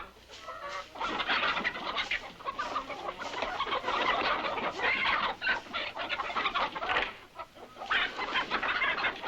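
A flock of agitated chickens squawking and cackling loudly in a frantic, unbroken din, easing off briefly about seven seconds in before rising again.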